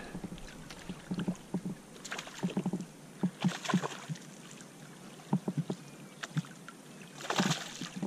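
Water splashing in short irregular bursts as a hooked crappie thrashes at the surface beside the boat, with a stronger splash about halfway through. The loudest, longest splash comes near the end as the landing net is dipped into the water to scoop the fish.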